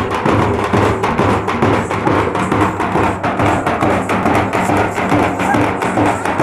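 A group of stick-beaten drums played together in a steady, fast teenmar rhythm of many strikes.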